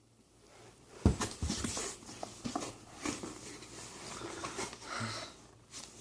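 Cardboard subscription box and its packing being handled: a knock about a second in, then irregular rustling and small clicks.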